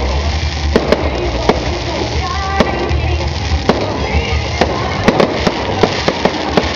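Aerial fireworks bursting: a string of irregular sharp bangs and cracks, coming faster and louder in the last couple of seconds. Music plays underneath.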